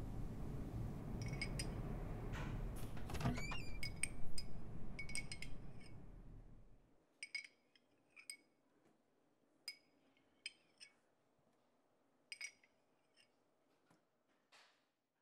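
High tinkling chime strikes, small bell- or glass-like rings, over a low rumbling hum that cuts off about seven seconds in. After that, single chime strikes ring out about once a second and grow fainter toward the end.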